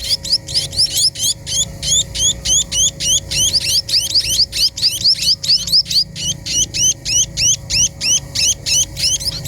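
A small bird, the pipit teki, chirping in a rapid unbroken series of short rising notes, about four a second.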